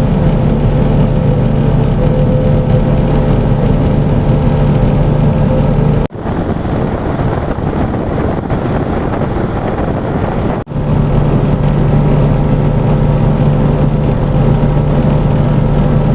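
An engine running steadily with a low hum, broken by two abrupt cuts, about six seconds in and again near eleven seconds; between the cuts the hum gives way to a rougher rushing noise.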